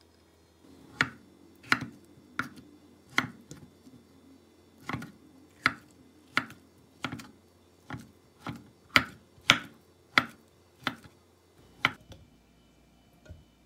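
Kitchen knife slicing soft avocado on a wooden cutting board: about fifteen sharp knocks of the blade meeting the board, a little over one a second, stopping near the end.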